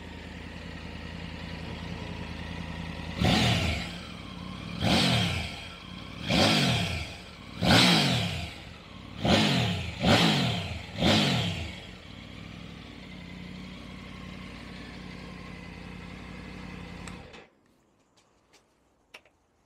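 Triumph Tiger 900 Rally Pro's three-cylinder engine idling, then revved in a run of about seven short throttle blips roughly every second and a half, each falling back to idle. It idles again briefly and is switched off about three seconds before the end.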